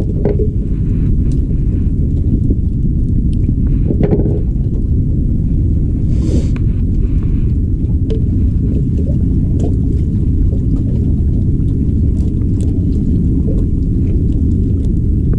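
Steady low rumble of wind buffeting the action camera's microphone, with a few faint small clicks over it.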